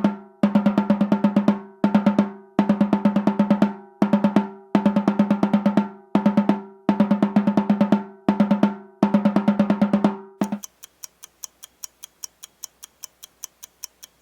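Snare drum playing short quick rolls of rapid strokes, repeated about once a second, stopping about ten seconds in. A faint steady ticking, about four ticks a second, follows.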